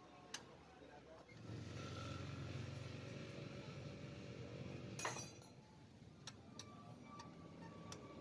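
Metal clinks of a wrench on the cylinder head bolts of a Kawasaki Barako 175 motorcycle engine, with one sharp clink about five seconds in and a few lighter clicks after it. A low, steady rumble runs under the first half.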